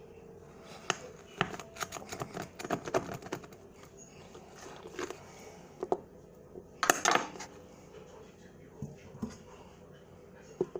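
Kitchen food-prep clatter: a quick run of light taps and clicks on a cutting board and dishes, then a few scattered knocks, the loudest about seven seconds in.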